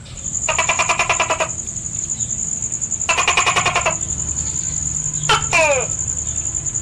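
Animal calls: two buzzy pulsed trills, then a pair of quick calls that fall in pitch, over a steady high-pitched whine.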